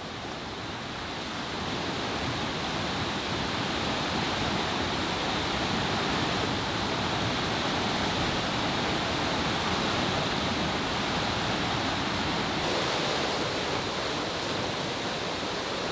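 Steady, unbroken rush of water.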